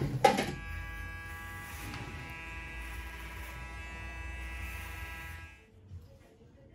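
Electric hair clippers running with a steady buzz during a haircut, then switched off about five and a half seconds in.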